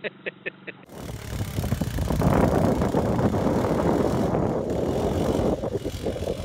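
Quad bike (ATV) engine running as it drives across sand, mixed with wind noise on the microphone, loudest from about two seconds in. Before that, a brief rhythmic clicking cuts off about a second in.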